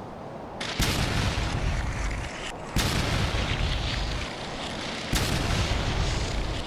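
Three sudden deep booms about two seconds apart, each trailing off in a long rumble and hiss.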